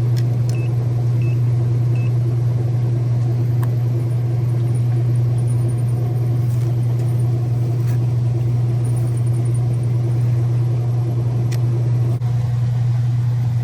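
Whirlpool dishwasher running on test, its motor giving a steady low hum. The machine fills but will not wash, which points to a failed wash motor. Three short faint high beeps sound in the first couple of seconds.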